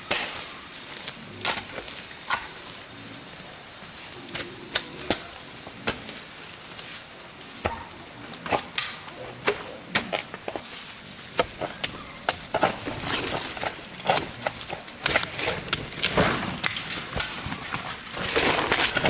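Irregular sharp chopping and knocking strokes on wood, single hits with short pauses, coming in quicker runs in the second half.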